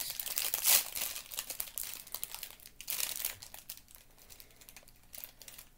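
A plastic Bear Paws snack wrapper crinkling as it is handled and opened, with dense crackling loudest about a second in, thinning to scattered crackles in the second half.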